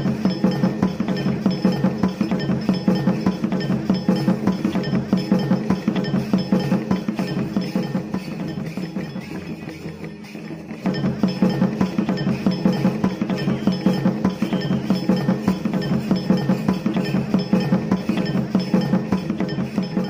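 Live folk drumming on barrel drums, a fast, steady beat accompanying a stick dance. The beat drops away briefly about halfway through, then starts up again.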